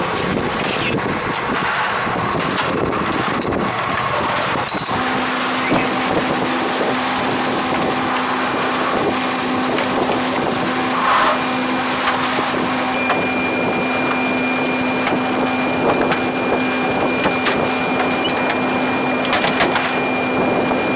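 A steady machine drone with constant hums: a low one starting about five seconds in and a higher one joining midway. Over it come light clicks and knocks as inert cannon cartridges are handled in plastic trays and a metal ammo can.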